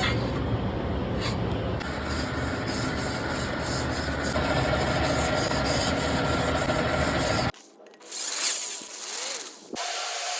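Hand rubbing or sanding strokes on a metal engine part, about three strokes a second. The sound cuts off abruptly near the end and gives way to a different tool sound.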